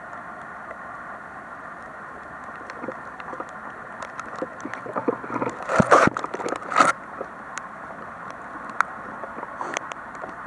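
Footsteps crunching and scraping over wet, burnt debris and rubble, over a steady hiss. The loudest cluster of crunches comes around the middle, then thins to scattered clicks.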